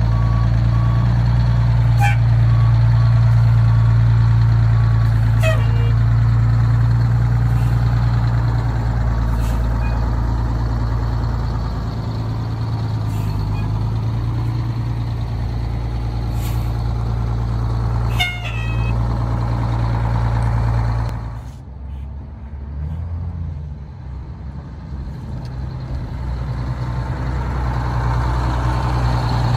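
A 1989 Crown Super Coach school bus's diesel engine running steadily, with a few short sharp chirps or clicks over it. About two-thirds of the way through, the engine sound drops away suddenly, then builds back up over the last few seconds.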